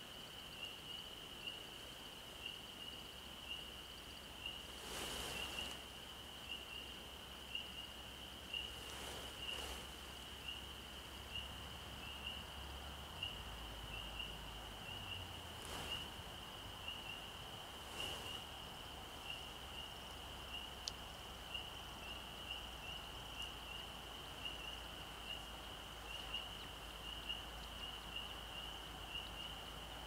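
Faint, steady evening chorus of high-pitched peeping calls, repeated several times a second. A few brief soft swells of noise pass through.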